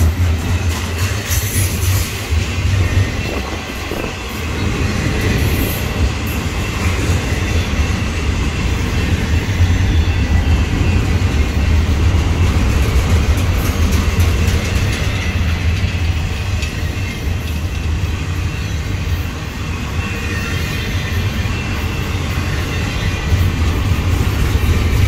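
Double-stack intermodal container well cars of a freight train rolling past: a steady, loud rumble of steel wheels on rail with clatter from the cars.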